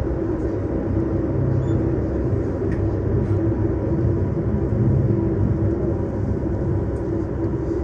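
Steady low rumble of a Calgary CTrain light-rail train running along the track.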